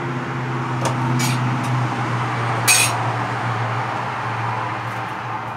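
Kitchen handling sounds at a steel counter: light clinks of utensils and steel containers, with one brief sharp clatter a little under three seconds in, over a steady low machine hum.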